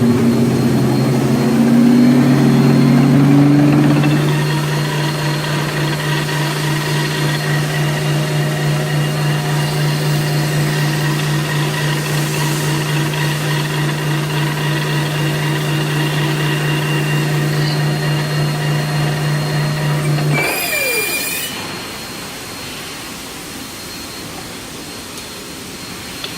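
A machine's electric motor starts and runs with a steady, even hum, then shuts off about twenty seconds in with a brief falling whine.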